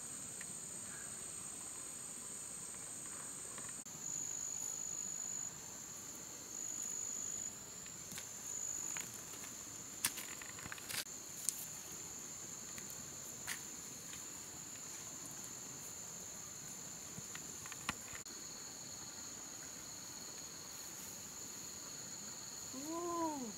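Steady high-pitched chorus of forest insects, with a few sharp clicks around the middle and a short rising-and-falling call near the end.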